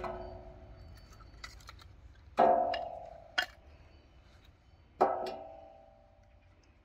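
Split wooden kindling sticks knocking into a sheet-metal grill box: three loud knocks, each ringing on and fading over about a second, with a couple of lighter clicks between.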